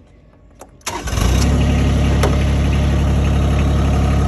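Tractor engine starting: a click, a brief crank, and the engine catching about a second in, then running steadily at idle.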